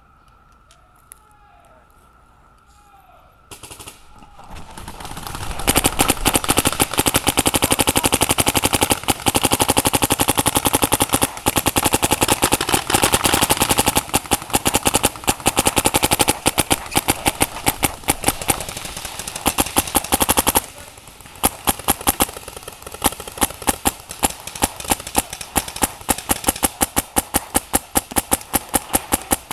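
Paintball markers firing in rapid strings. It starts faint, turns into dense continuous volleys from about four seconds in, and after about twenty seconds thins to quick bursts of separate shots.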